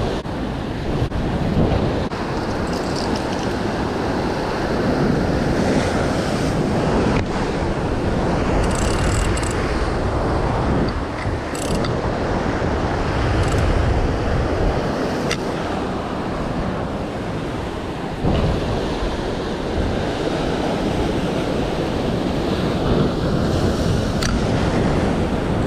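Ocean surf washing against a rocky shoreline, with wind buffeting the microphone. A few faint ticks come through now and then.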